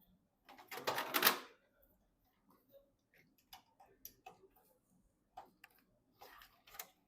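Handling noises from PC parts being assembled: a rustle lasting about a second, then scattered small clicks and taps, and another short rustle near the end.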